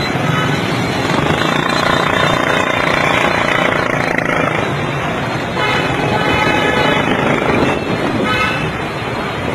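Busy street traffic: motorcycle engines running in a dense, steady din, with horns honking in short blasts in the second half.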